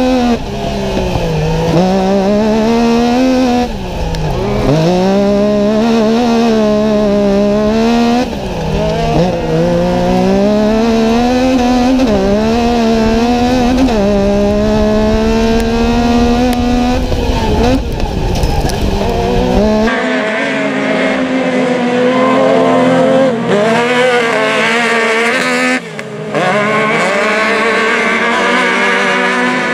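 Yamaha YXZ1000R UTV's three-cylinder engine heard from the cockpit at race pace, its speed dropping sharply and climbing again many times. About two-thirds of the way in the sound changes to racing UTV engines heard from trackside, thinner and higher.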